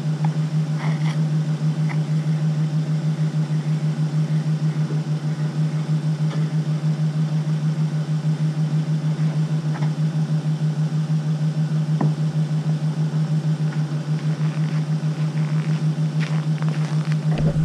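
Chevy Silverado pickup engine idling steadily on a remote start, warming up in sub-zero cold. A few light footsteps on the icy driveway near the end.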